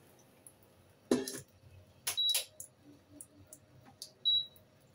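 A metal pot is set down with one ringing clank, followed by a few light clicks and short high electronic beeps from the cooker's controls as it is switched on to boil water.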